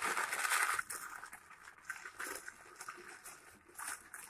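Butter paper rustling and crinkling as it is rolled by hand around a shawarma wrap, loudest in the first second, then softer.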